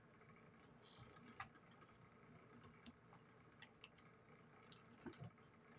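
Near silence with faint eating sounds: a few soft clicks of forks on plates and wet chewing, the clearest click about a second and a half in.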